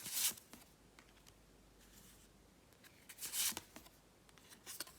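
Tarot cards being handled on a table: three short rustles and slides of card stock, the first right at the start, a louder one about three and a half seconds in, and a brief one near the end, with a few faint clicks between.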